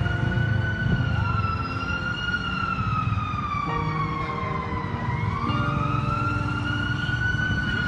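A siren wailing slowly: its pitch sinks to a low point about five seconds in, then climbs again, over a steady low background rumble.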